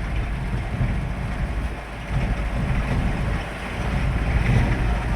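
Steady low rumble of a vehicle being driven: engine and road noise.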